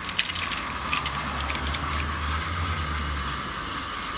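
Steady mechanical hum and hiss, with a few light plastic clicks in the first half-second as a plastic toy steam locomotive is handled.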